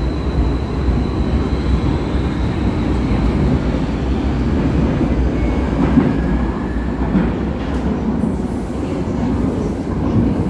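Vienna U-Bahn metro train pulling out of an underground station and running off into the tunnel: a steady low rumble of wheels on rail with a thin high whine that fades over the first few seconds.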